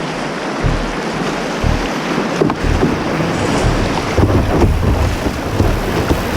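River water rushing steadily through rapids, with wind buffeting the microphone in low gusts.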